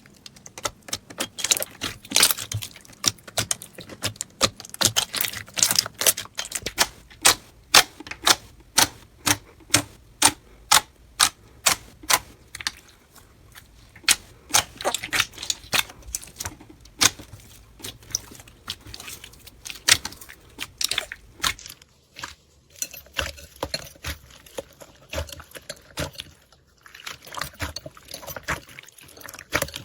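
Slime being squeezed and pressed by hand, giving a long run of sharp, irregular clicking pops, a few a second, with a change in texture about two-thirds of the way through.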